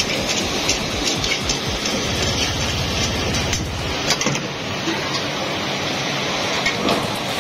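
Chicken karahi sizzling in a black iron karahi over an open fire, with scattered clicks and scrapes of a metal spatula against the pan.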